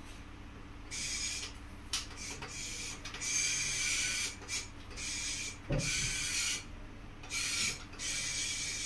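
G-Matronix R90+ autorefractometer's internal motors whirring in a series of short bursts, half a second to a second and a half each, as the machine aligns on the eye and takes a reading. There is a single low knock partway through.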